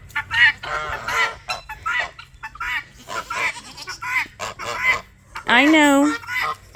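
Geese honking in a run of short calls, with a longer, louder wavering call near the end.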